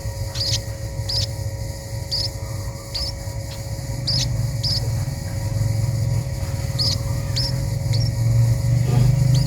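A small bird gives short, high, squeaky chirps over and over, roughly two a second, with a short gap around the middle. A steady low rumble runs underneath.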